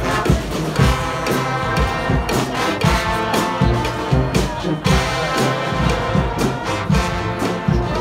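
Street brass band playing live: trombones and trumpets over drums with a steady beat.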